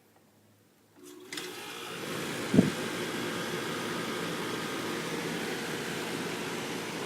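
Trane Weathertron 2.5-ton heat pump outdoor unit starting up in cooling mode: about a second in it kicks on and builds to a steady running noise, with a single short thump shortly after it starts.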